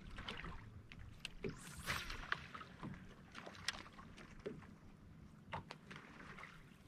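Small waves lapping against the hull of a bass boat, with light wind on the microphone and a few faint clicks and knocks.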